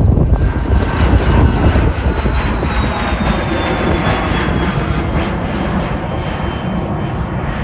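Airliner engines passing close: a loud low rumble with a high whine that slides steadily down in pitch as the plane goes by, the rumble easing off slightly toward the end.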